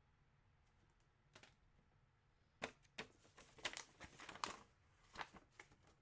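Faint crinkling and clicking of plastic packaging being handled, starting about two and a half seconds in after near silence.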